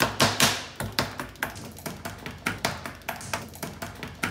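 Knife chopping carrots on a plastic cutting board: a quick run of sharp knocks, about three a second, as the blade cuts through and strikes the board.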